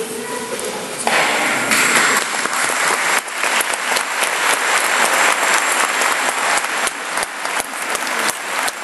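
An audience breaks into applause about a second in, as music dies away, and the clapping goes on steadily.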